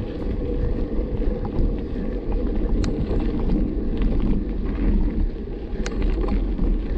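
Wind buffeting the microphone during a mountain-bike ride, a dense low rumble, with scattered small clicks and rattles and two sharper ticks about three and six seconds in.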